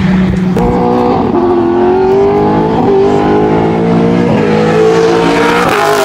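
A high-performance car engine accelerating hard, its note climbing through several upshifts about a second and a half apart, then dropping in pitch as the car passes at the end. A second engine holds a steady lower note underneath.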